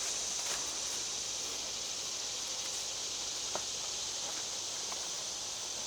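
Steady high-pitched insect drone, with a few faint light clicks and taps.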